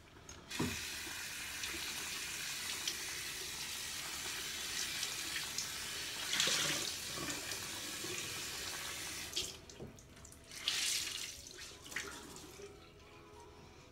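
Tap water running into a sink with splashing for about nine seconds, then stopping, followed by a couple of shorter splashes of water being used to rinse off a face mask.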